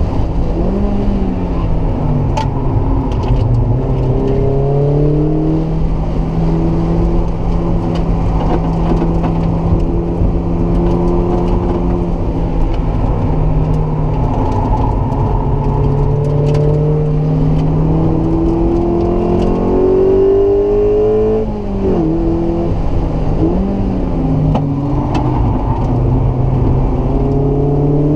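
Mazda MX-5's four-cylinder engine heard from inside the open cabin under hard driving. The note holds steady, climbs under acceleration and drops sharply at gear changes. There is a brief lift-off about 21 seconds in, after which it pulls up again through the gears.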